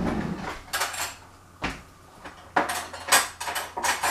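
A metal spoon clinking and scraping against a container in a run of short strokes, sparse at first and quicker and closer together in the second half, as blackberry jam is spooned out.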